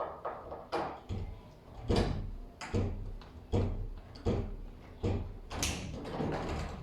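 Repeated knocks against a door as a broken doorknob is being worked back into place, about nine sharp blows at roughly one every three-quarters of a second, each with a short, deep ring.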